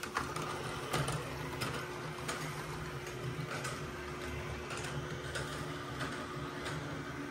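Toy train set's locomotive starting up and running on its plastic track: a steady motor whirr with a light click about every two-thirds of a second.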